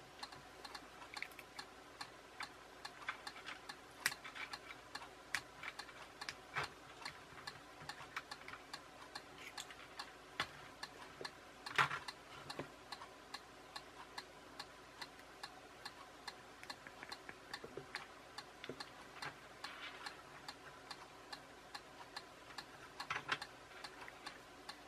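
Faint, irregular small clicks and taps of a small DC motor and its wires being handled with fingers and pliers, with one louder click about twelve seconds in.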